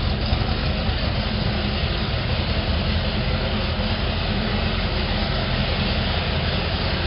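Mercury Racing 8.2 H.O. big-block V8 marine engines with CMI exhausts running steadily at idle on their first start.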